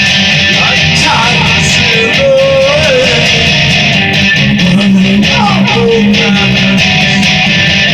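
Guitar playing an instrumental passage between sung lines: chords strummed steadily, with a few notes that bend up and down in pitch.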